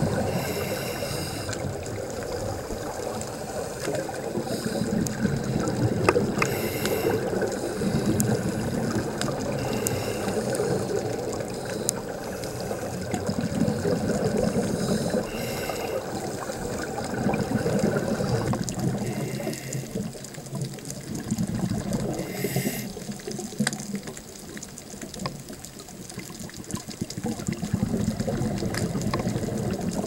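Scuba regulator breathing heard underwater: a short hiss at each inhalation every few seconds, with the bubbling, gurgling rumble of exhaled air between.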